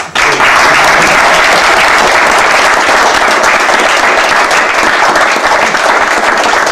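A roomful of guests clapping and applauding. It breaks out suddenly and holds loud and steady.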